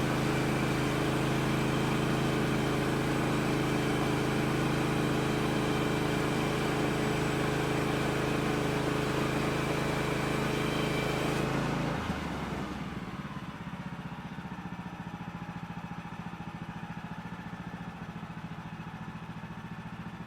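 Woodland Mills HM130MAX portable band sawmill's gasoline engine running steadily at high throttle as the blade cuts through a log, then dropping to a quieter, lower idle about twelve seconds in.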